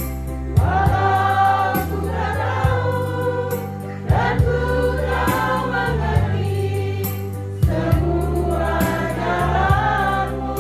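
A congregation singing a hymn together, with electronic keyboard accompaniment playing held bass notes that change every second or so.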